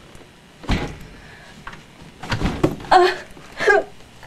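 A woman's short frightened moans and heavy breaths in a small room, with two dull thumps, one about a second in and another about two and a half seconds in.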